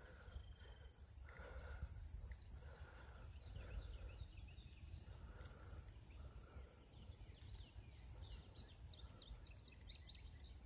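Near-quiet outdoor ambience: a faint steady high insect drone, with a quick run of short chirping bird calls near the end.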